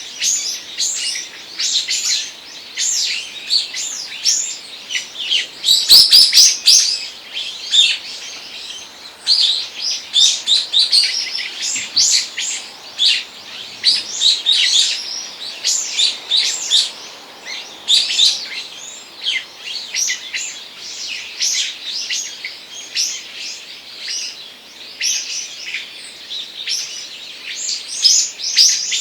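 Many small birds chirping and twittering in a dense, overlapping chorus of short, high calls, busiest around six seconds in. A brief click sounds about six seconds in.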